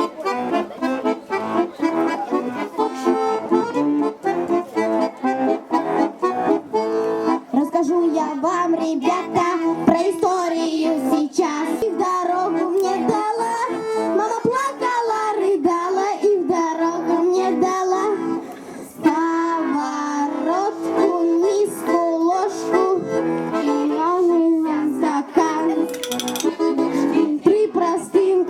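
Accordion playing a tune, with children's voices singing along.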